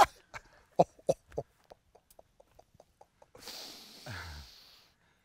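A man breathing hard after being hit by rubber-ball less-lethal shotgun rounds. A few short breathy noises are followed, about three and a half seconds in, by a long breath blown out through the lips with a low falling groan.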